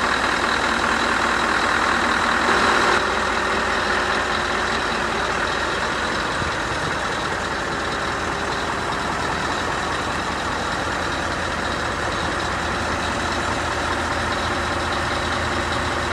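Scania R560's V8 diesel engine idling steadily, a little quieter from about three seconds in.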